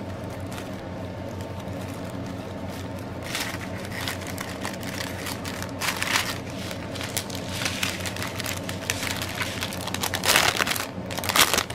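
Small clear plastic zip bags of diamond-painting drills crinkling as they are handled, in a few short bursts, the longest near the end, over a steady low hum.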